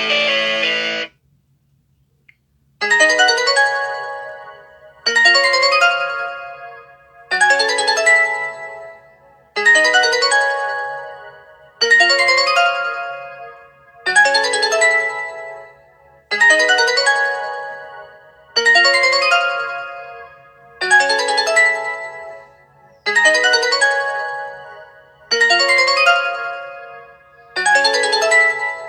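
Classic LG ringtone playing on an LG G8 ThinQ smartphone: a short melodic phrase of pitched notes that starts sharply and fades out, looping about every two and a quarter seconds. In the first second the previous ringtone, a distorted electric-guitar tune, cuts off, followed by a gap of silence of nearly two seconds.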